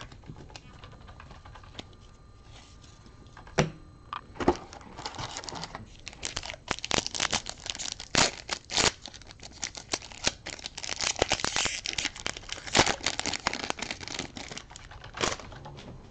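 A foil trading-card pack from a Rookies & Stars retail box being torn open and crinkled: a few sharp clicks, then from about four seconds in a dense run of crackling and ripping that dies away near the end.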